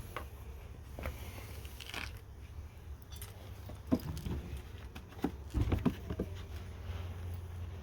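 Scattered light clicks and taps over a low steady rumble, the rumble swelling a little after the middle.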